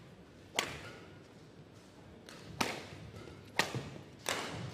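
Badminton racket strings striking a shuttlecock in a rally: four sharp, crisp hits, the first three a second or more apart and the last quicker.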